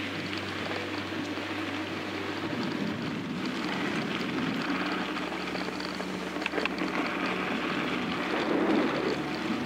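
Mountain bike rolling fast downhill on a gravel road: a steady rush of tyre noise on loose dirt, with a few small clicks and rattles from the bike about six and a half seconds in.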